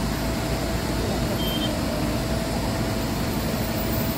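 Steady engine noise from vehicles, a low even rumble with a constant mid-pitched whine running through it.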